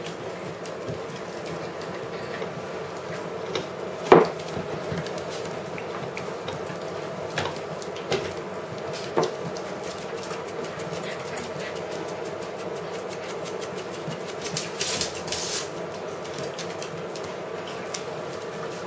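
Puppies playing on a tiled floor: scattered clicks, scuffles and knocks over a steady hum. A sharp knock about four seconds in is the loudest, with smaller bursts of clicking later.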